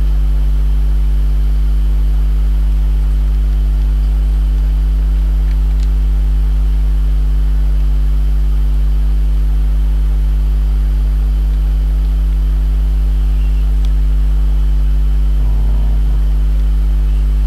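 Loud, steady electrical hum: a low buzz with a row of steady overtones above it that does not change throughout. A couple of faint clicks sit under it.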